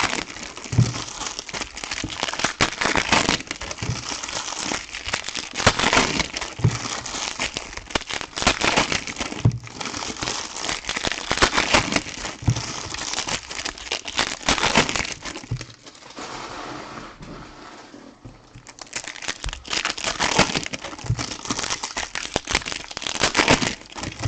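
Plastic wrapping on trading card boxes and packs crinkling and tearing as it is handled and stripped off, in a long run of crackles with a brief lull about three quarters of the way through.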